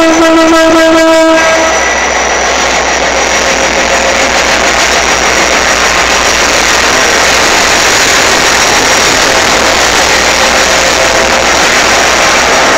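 EMD GT22 diesel locomotive's horn, which cuts off about a second and a half in. The locomotive's diesel engine then runs loud and steady with a low hum.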